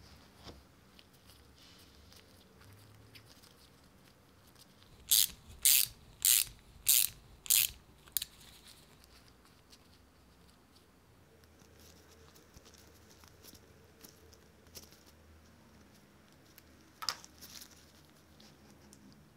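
Small metal parts of a bicycle caliper brake being handled and fitted together, with faint clicks and rubbing. About five seconds in comes a run of five loud, short raspy scrapes about half a second apart, then one more shortly after, and another near the end.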